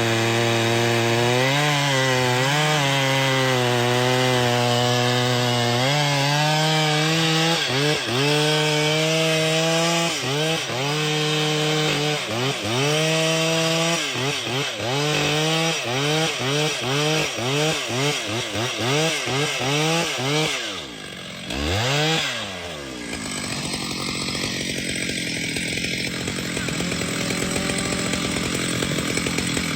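Chainsaw cutting wood, its engine note holding steady at first, then rising and falling about twice a second as the chain bites. The engine drops off briefly about two-thirds of the way through, then gives way to a steady rasping noise that grows louder.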